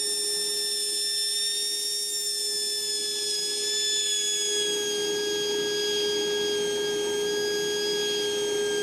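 Running Wen 3403 single-stage dust collector drawing air into an open 4-inch duct, where a handheld anemometer is held in the airflow. The air rushes in with a steady whistle, and higher tones drift slowly lower as the measured air speed falls a little.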